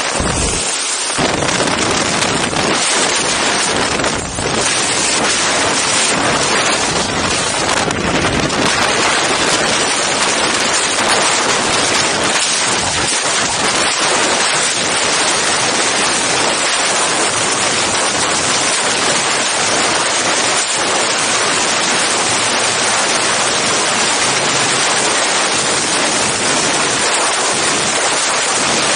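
Loud, steady rush of wind on the microphone of an Insta360 One X camera during a skydive: wind through the open aircraft door, then the freefall airstream.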